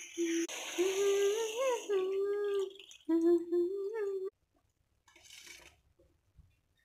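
A person humming a wavering tune over the hiss of water poured into a hot wok of fried masala. Both stop abruptly about four seconds in.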